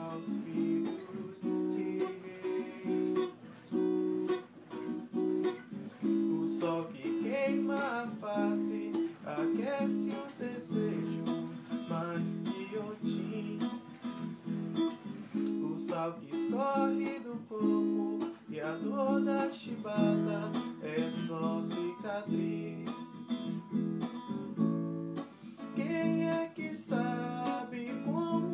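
Waldman acoustic guitar strummed in a steady rhythm while a man sings over it.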